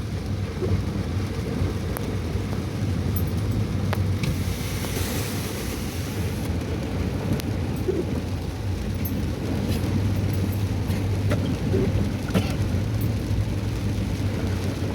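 A vehicle engine running steadily at idle, heard under an even hiss of rain and water with a few scattered sharp taps; a louder hissing rush of water comes about four to six seconds in.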